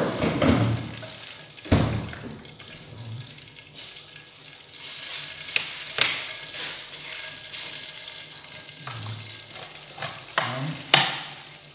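Fish sauce being poured into a hot frying pan and sizzling, with a steady frying hiss and a few sharp clicks and knocks, the loudest near the end.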